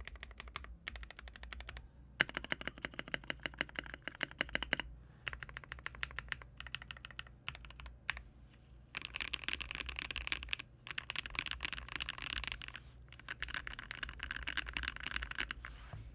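Ikki68 Aurora mechanical keyboard, built with a polycarbonate plate, lubed and filmed Marshmallow switches and IFK Comfy keycaps, typed on in fast runs of keystrokes broken by short pauses.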